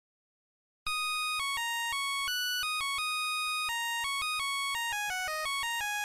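Silence, then about a second in a synthesized melody of single beeping notes, like a ringtone. The notes change pitch one after another, run quicker and step downward near the end, then hold longer.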